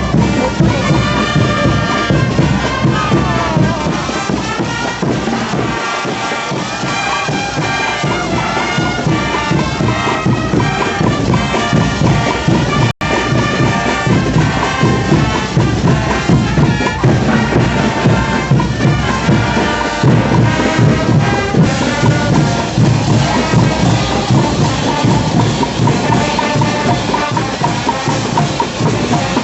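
Brass band playing a caporales tune: sustained horn notes carry the melody over a steady drum beat. The sound drops out for an instant near the middle.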